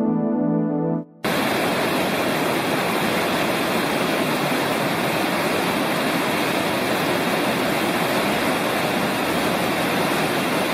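About a second of soft background music with held chords, which breaks off, followed by the steady, loud rush of a mountain creek's fast-flowing water.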